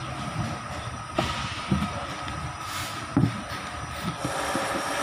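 Steady background rumble with a faint constant whine, over which a few clicks and low knocks come as a corded angle grinder's plastic body is handled for disassembly; the sharpest click is about a second in.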